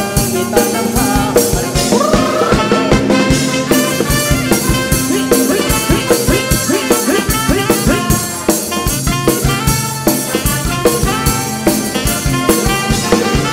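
A live band plays an instrumental passage of a luk thung dance song over a stage PA, with a steady beat.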